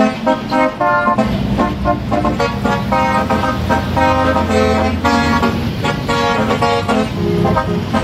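Dubbed-in musical truck air horn playing a fast tune of short notes that jump in pitch, over the low running of a passing truck's engine.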